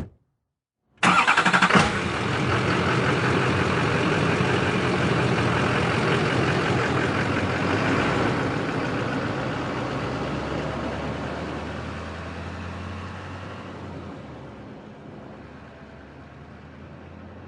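Truck engine starting abruptly about a second in, running, then fading away slowly as the truck drives off.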